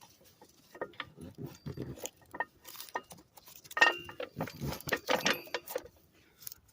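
Irregular metallic clicks and clanks, a few ringing briefly, from a car jack being handled and set at the lifting point.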